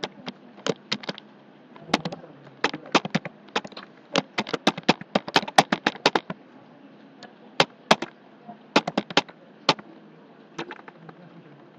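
Typing on a computer keyboard: quick runs of sharp key clicks with short pauses, densest in the middle and thinning out over the last few seconds.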